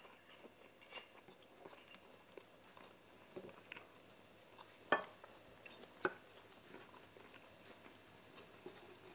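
Quiet close-up eating sounds: chewing and small mouth smacks, with light clicks of a wooden spoon against a plate, the sharpest two about five and six seconds in.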